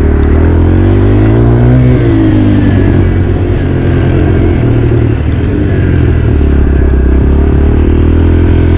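Dirt bike engine running, its pitch climbing about a second in, dropping back at about two seconds, then holding fairly steady.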